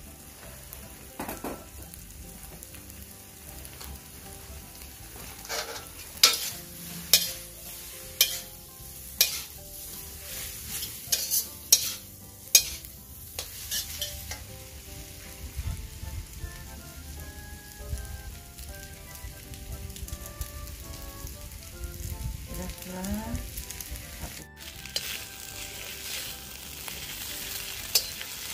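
Wet noodles and vegetables sizzling in a steel wok while a metal spatula stirs and scrapes them, with a run of sharp clanks of the spatula against the wok in the middle.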